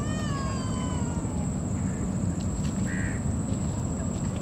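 An animal's single long cry, starting at once and falling slowly in pitch over about a second and a half, with a short faint call about three seconds in. Underneath runs a steady low background rumble with a thin high whine.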